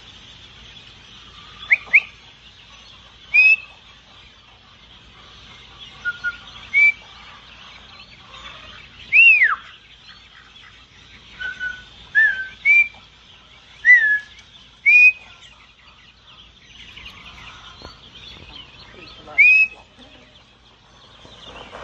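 Chickens calling: a dozen or so short, high, gliding calls spaced irregularly, over a faint steady high chatter.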